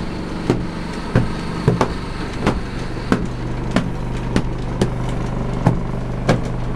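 A thin wooden stick beating a freshly filled cotton quilt (razai) in steady strokes, a little under two a second, spreading the cotton filling evenly into the quilt's corners. A low steady hum runs underneath.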